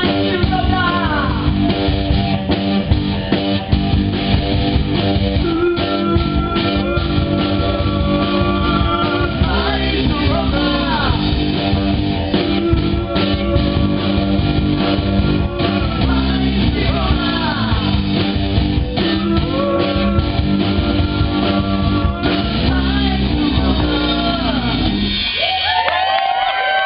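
Live rock band playing a song: a singer over electric guitar and bass guitar with a steady beat. The song ends about 25 seconds in.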